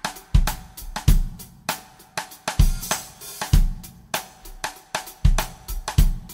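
Rock drum kit playing a beat: kick drum hits under snare strokes and cymbal and hi-hat crashes.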